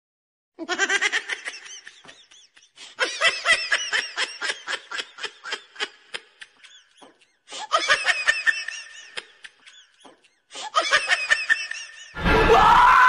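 A woman laughing in four long bouts of rapid, high-pitched laugh syllables with short pauses between them, acting a mad character. About twelve seconds in, a sudden loud burst of shouting cuts in.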